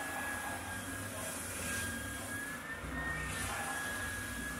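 Scheppach OSM600 oscillating belt sander running while a long wooden board is sanded against its belt: a steady motor hum under a thin high whine and an even hiss. The whine rises slightly about three seconds in.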